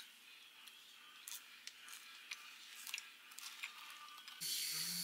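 Flaky croissant crust crackling faintly as hands tear it apart, a few small crisp crackles. About four seconds in, a steady hiss begins and runs on.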